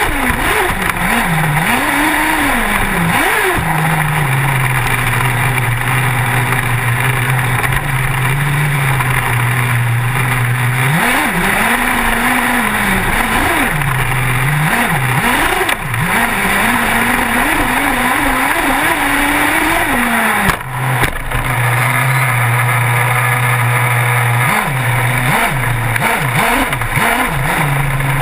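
Small two-stroke engine of a radio-controlled car, heard from on board, revving up and falling back again and again between stretches at a steady lower pitch. A hiss of wind and tyre noise runs under it.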